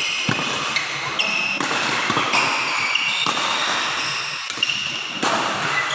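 Badminton rally: rackets striking the shuttlecock and players' shoes squeaking and thudding on the court mat, in a string of sharp hits and short high squeaks.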